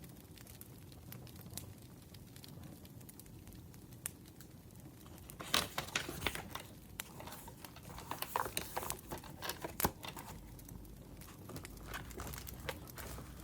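A parcel's packaging being handled and opened: crinkling, rustling and tearing with small sharp clicks, busiest from about five to ten seconds in.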